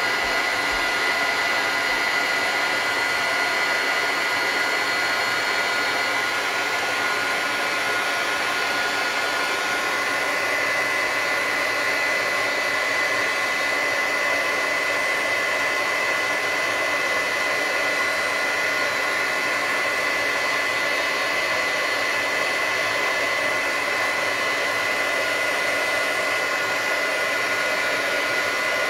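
Craft heat embossing gun blowing steadily, a continuous fan rush with a steady high whine, as it melts gold embossing powder on a stamped card.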